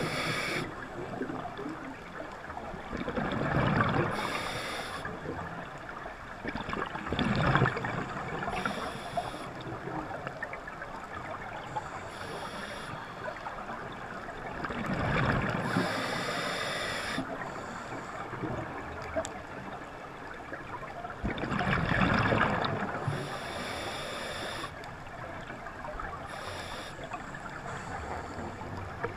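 Scuba diver breathing through a regulator underwater: a hiss on each inhalation and a gush of exhaust bubbles on each exhalation, repeating every few seconds.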